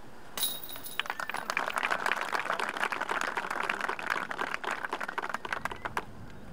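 A disc striking the chains of a disc golf basket, a brief metallic jingle, followed by spectators clapping for about five seconds, stopping suddenly near the end.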